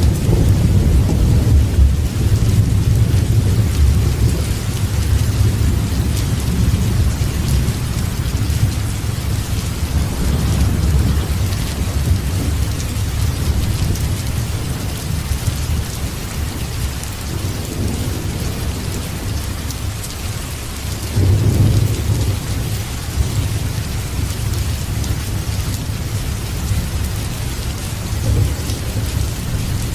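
Steady heavy rain with thunder rumbling low underneath, the rumble swelling about twenty-one seconds in.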